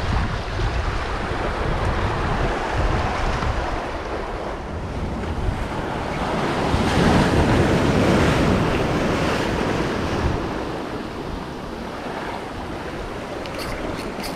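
Ocean surf washing and breaking against jetty rocks, with wind buffeting the microphone. A wave crashes and the surf swells loudest about seven to ten seconds in, and a few short clicks come near the end.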